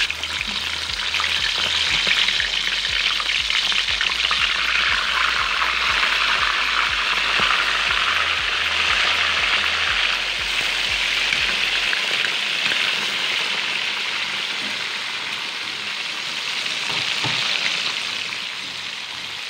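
Whole milkfish sizzling in hot oil in a wok as more fish are laid in: a steady frying hiss that slowly eases off toward the end.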